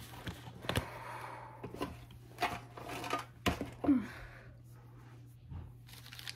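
Light clicks, taps and rustles of trading cards and their packaging being handled, with a short falling sound about four seconds in and a steady low hum underneath.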